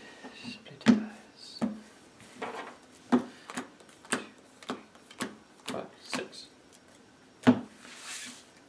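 A sleeved deck of trading cards being shuffled by hand, a run of sharp card clacks about twice a second, with one louder knock of the deck on the table a little before the end, then a brief soft brushing.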